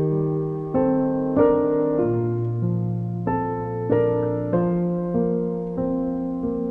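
Slow, gentle piano music, a new note or chord struck about every half second to a second and left to fade.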